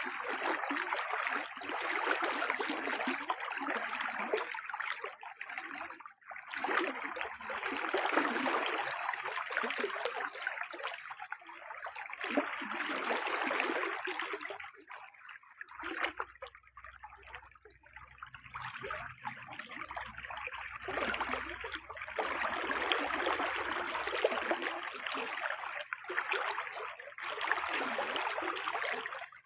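Water running and trickling, swelling and dropping away every few seconds.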